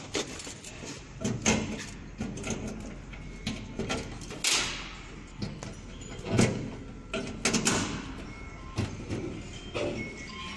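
Hands handling metal fittings and plastic fuel hoses on the injector clamp of a common rail injector test bench: irregular knocks, clicks and rubbing, the longest a rushing scrape about four and a half seconds in. A low steady hum runs underneath from about two seconds in.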